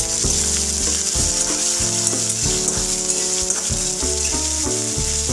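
Chopped onions frying in hot oil with mustard seeds, cumin and curry leaves in a kadhai, a steady sizzle while a spatula stirs them; the onions have just gone in and are being sautéed toward golden. Under the sizzle runs a layer of held low notes that change pitch in steps.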